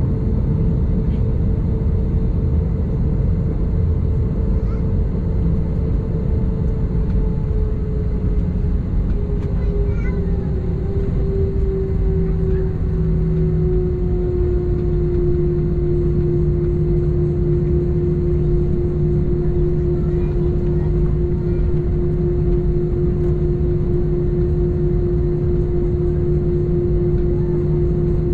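Airbus A321-211's CFM56 jet engines at taxi power, heard inside the cabin over the wing: a steady low rumble with an engine hum whose pitch eases down a little about ten seconds in and then holds steady.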